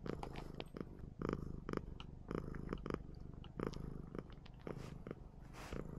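Domestic cat purring close to the microphone, a steady low rumble, with soft irregular clicks over it.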